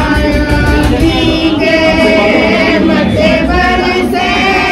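A group of women singing together in chorus.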